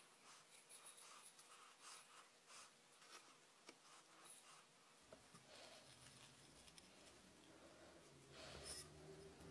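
Faint, scratchy rasping and ticking as a thin strip of tape is peeled out of the surface of a clay cup, in a run of short scratches. About halfway a low hum comes in, and near the end there is a louder scrape.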